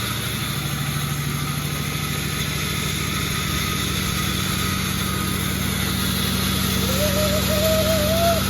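Sawmill's engine running steadily with an even hum, not under cutting load. Near the end a brief wavering, whistle-like tone rises over it.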